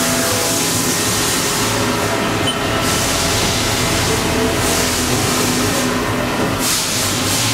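Haas VF-3 vertical machining center moving its axes, the servo-driven table traversing with a faint steady whine that starts and stops. It is half-buried under a loud, steady din of other machine tools running in the shop.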